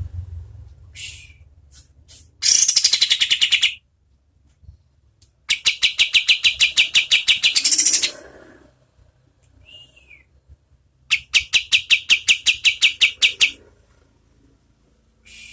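Kapas tembak songbird singing its rapid-fire 'tembakan' trill: three runs of fast, evenly repeated high notes, about ten a second, each lasting one to three seconds, with a short call between the second and third.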